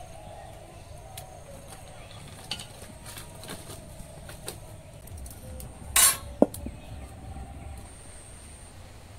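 Scattered light clicks and knocks as dry sticks are fed into a clay stove and steel cookware is handled. About six seconds in comes a louder knock, then a sharp metallic clink that rings briefly.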